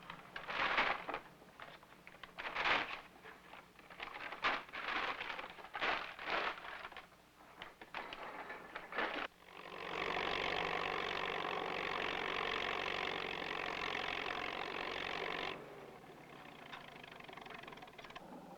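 A run of irregular knocks and clatters, then a steady machine drone that starts about ten seconds in, runs for about five seconds and cuts off suddenly.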